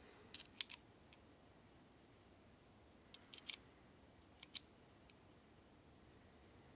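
Small steel parts of a Mauser C96 pistol clicking against each other as they are handled and fitted together. The clicks come in three short clusters: just after the start, around three seconds in, and at about four and a half seconds.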